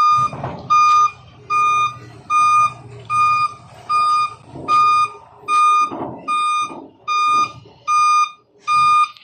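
Dump truck's reversing alarm beeping steadily, about one beep every 0.8 seconds, as the Isuzu 10PE backs up, with the diesel engine running underneath.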